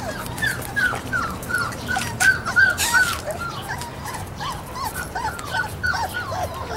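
Bullmastiff puppies whining: a rapid run of short high whines, about three or four a second.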